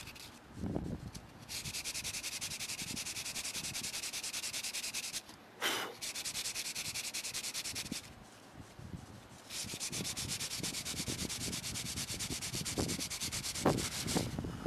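Sandpaper rubbed by hand in fast, light back-and-forth strokes over cured body filler on a roof panel. It comes in two runs of a few seconds with a pause between them, and a brief sharp sound falls in the pause.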